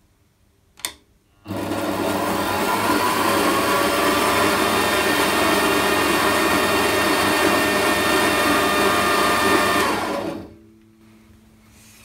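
Warco 5-inch benchtop metal bandsaw running free with no cut at its maximum blade speed. After a click, the motor soft-starts about a second and a half in with a rising whine, runs steadily for about eight seconds, then is released and winds down.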